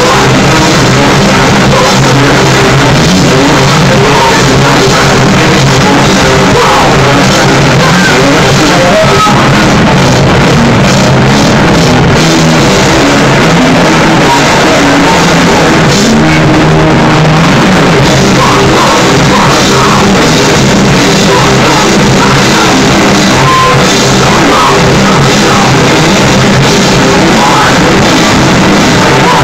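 Rock band playing live: electric guitars, bass guitar and a drum kit, loud and continuous.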